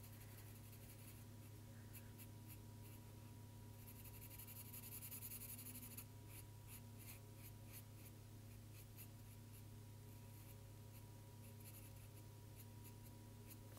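Faint scratching of a black felt-tip marker on paper in many short strokes, filling in a small area, densest a few seconds in, over a steady low hum.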